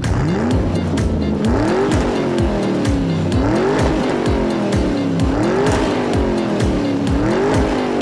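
Engine-revving sound, pitch repeatedly rising and falling about every two seconds, over music; it starts abruptly.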